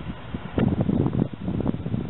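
Wind buffeting the microphone: an irregular low rumble that comes in uneven gusts.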